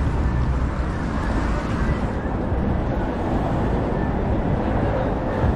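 City street ambience with a steady rumble of road traffic on a busy avenue.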